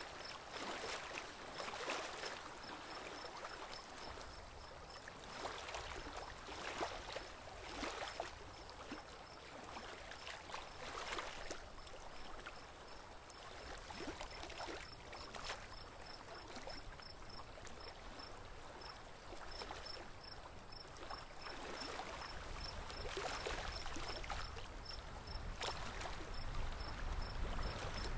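Water splashing and trickling around a small boat moving slowly on a calm river, in irregular splashes every second or two. A low rumble grows near the end.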